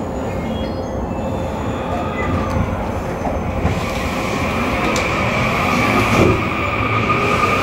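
Running sound of a JR East E235 series Yamanote Line motor car with a Toshiba SiC-VVVF inverter: wheels rumbling on the rails, slowly growing louder. About halfway in, the traction motors' steady high whine sets in.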